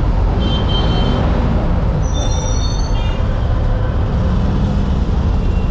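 Busy city street traffic: vehicles running close by as a steady low rumble, with a few short high-pitched tones, the clearest about two seconds in.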